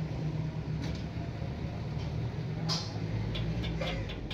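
Steady low hum of an idle stick-welding machine, with a few light metallic clicks and one louder click and scrape about two-thirds of the way in, as the welding rod and electrode holder are handled between welds.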